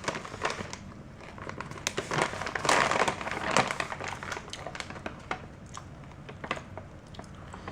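Plastic snack bag crinkling and rustling as it is handled, with irregular small crackles and clicks.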